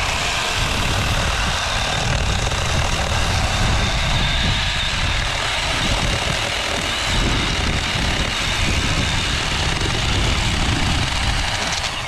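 Cordless Milwaukee Hatchet chainsaw running steadily with a high motor-and-chain whine. It starts at full speed the instant the trigger is pulled and cuts off just as suddenly near the end.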